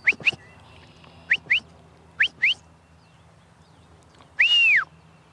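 A shepherd's herding whistle commands to a working Border Collie. Three pairs of short, quick rising notes come first, then one longer note that rises and falls back. Each whistle stands for a spoken command such as lie down.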